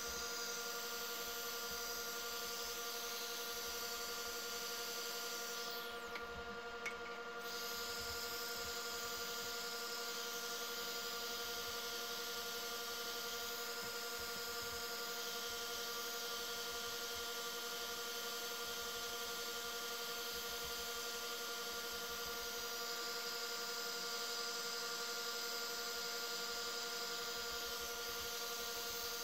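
Wood lathe and rotary sanding pad running steadily as the pad is worked over a spinning resin-and-cactus turning: a steady machine hum with an even hiss. The hiss drops away for about a second and a half around six seconds in, with a faint click.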